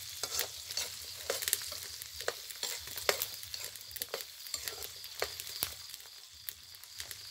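Garlic and shallots frying in hot oil in a pan: a steady sizzle broken by irregular sharp pops and spits of oil.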